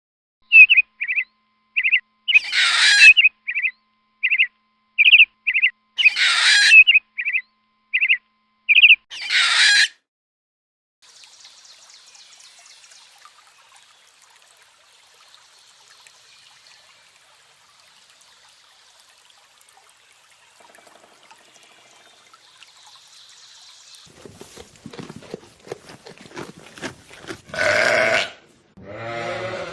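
A bird chirping in short, high, repeated notes, broken by three louder, harsher calls, for about ten seconds. After that a faint high hiss runs on, then a series of clicks, and near the end a loud animal call.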